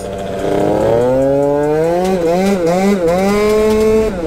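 Piaggio Zip SP 50 cc two-stroke scooter engine accelerating. Its pitch rises steadily for the first couple of seconds, then wavers up and down with a few small throttle dips, and dips briefly again near the end. It is running without its radiator fitted, which the rider says leaves it hot and down on power.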